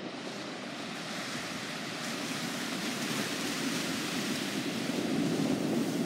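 Ocean surf breaking and washing toward the shore: a steady rush of water that grows a little louder near the end.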